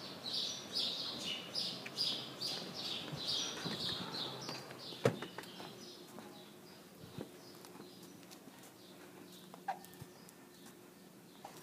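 Footsteps of hard school shoes on a tiled floor, about two steps a second, with a high scuffing click on each step; they fade about four to five seconds in as the walkers move onto carpet. A single sharp knock follows, then a steady low hum.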